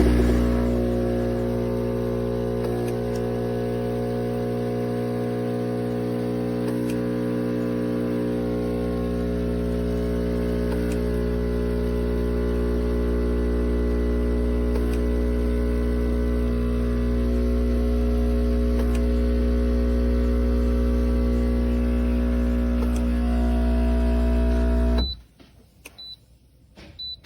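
Espresso machine's pump running with a steady buzzing hum, then cutting off suddenly about 25 seconds in. A few faint short beeps follow near the end.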